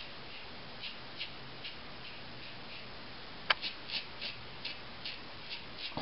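Gillette Slimtwist double-edge safety razor with a Wilkinson Sword blade cutting through lathered stubble in short strokes, each a crisp rasp, about two to three a second, with one sharper click about three and a half seconds in.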